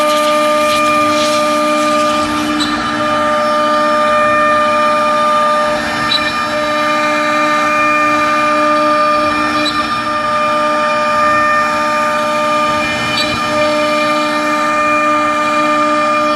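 CNC router's high-speed Azanelli spindle whining steadily as a 12 mm ball-nose bit mills a relief into pine, with the hiss of the cut underneath. The whine dips slightly every few seconds as the tool path changes.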